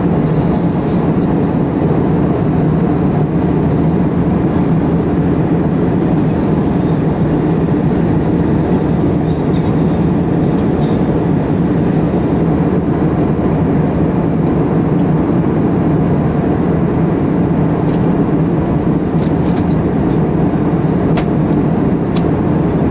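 Steady jet engine and airflow noise inside an airliner cabin in flight.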